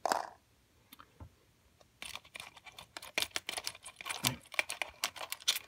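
Small metal items clicking and rattling against one another and the tin as fingers rummage through a full-size Altoids tin. A rapid, uneven run of light clicks starts about two seconds in.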